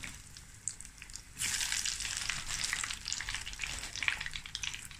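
Feta and jalapeno pastry pockets deep-frying in hot oil in a stainless steel pot: a steady sizzle with small crackling pops. It is softer for about the first second and a half, then louder.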